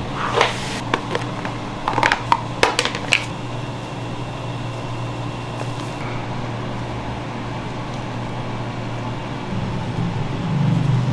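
Steady low hum of kitchen machinery, with a quick run of light, sharp clicks and taps of utensils in the first three seconds.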